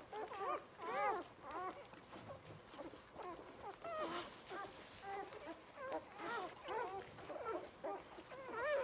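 Newborn English setter puppies squeaking and whimpering as they nurse: a continual run of short, high squeals that rise and fall in pitch, several pups at once.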